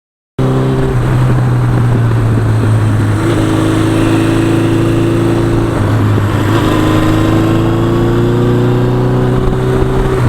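1982 Suzuki GS1100E's air-cooled inline-four engine running under way on the road, its note climbing slowly, dropping about six seconds in, then climbing again. The sound cuts in abruptly just after the start.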